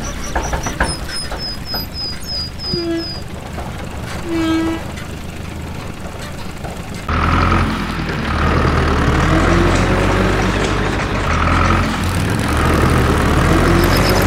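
Truck engine sound, quieter at first, then loud and steady after a sudden change about halfway through, with its pitch rising and falling.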